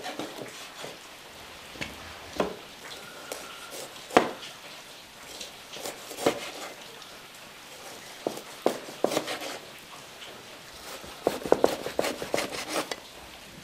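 Cleaver cutting through smoked cured pork onto a chopping board: separate knocks of the blade on the board every second or two, then quick runs of chops about two-thirds of the way in and again near the end.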